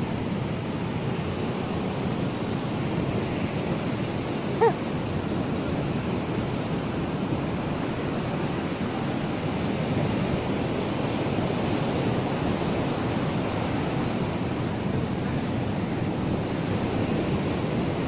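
Sea surf breaking and washing up the sand, a steady rushing noise, with some wind on the microphone. A single very short high-pitched chirp cuts through about four and a half seconds in.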